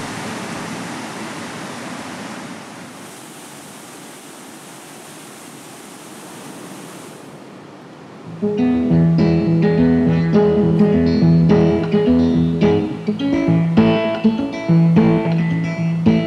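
Even rushing-water hiss of a stream that slowly fades, then plucked guitar music comes in sharply about halfway through and carries on.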